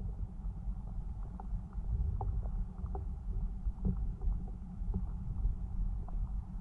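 Muffled low rumble of water moving, recorded underwater through a GoPro's waterproof housing, with faint scattered clicks and taps.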